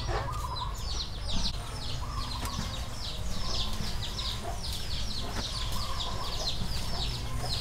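A bird chirping over and over: short high notes, each falling in pitch, about three a second, over a low background rumble.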